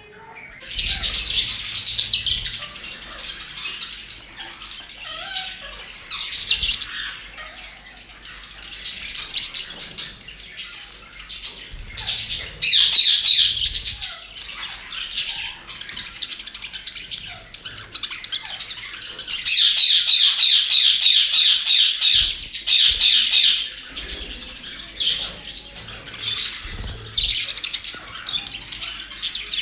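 Pet parrots squawking and chattering in loud, harsh bursts, some in rapid-fire runs, with softer calling in between; the longest bursts come about a third and two-thirds of the way through.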